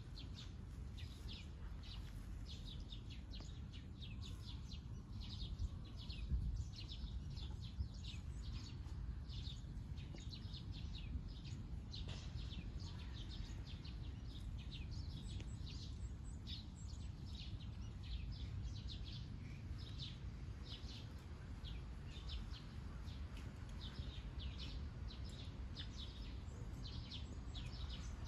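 Birds chirping in many short, high calls, about two or three a second, over a steady low rumble, with a brief thump about six seconds in.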